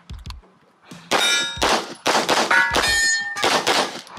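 Rapid pistol shots, roughly two a second starting about a second in, with steel targets clanging and ringing after the hits.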